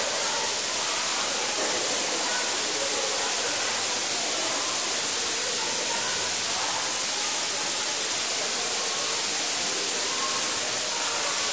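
A steady, even hiss throughout, with faint distant voices rising through it now and then.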